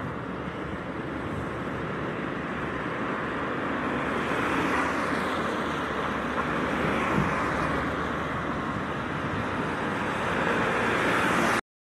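Road traffic: cars passing along the street, the sound swelling about four seconds in and again near the end, then cutting off abruptly.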